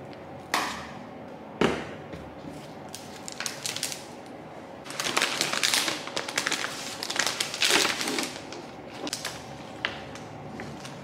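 Pruning shears snip twice, sharply, then the bouquet's clear plastic wrapping crinkles and crackles for about three seconds as it is pulled away from the flowers.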